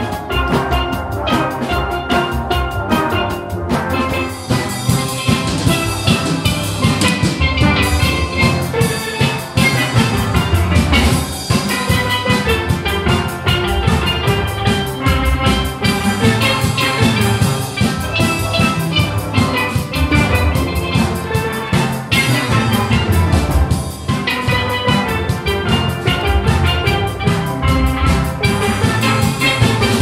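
Steel band playing a lively tune: many steel pans struck together in a busy, continuous pattern of bright ringing notes over a low bass line.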